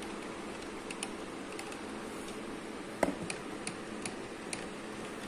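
Light plastic clicks and taps from hands handling a plastic 4x4 RC toy car, with one louder knock about three seconds in, over a steady low room hum.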